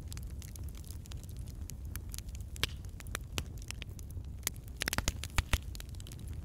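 Irregular crackling and popping of a burning candle wick, with a quick run of pops about five seconds in, over a low steady hum.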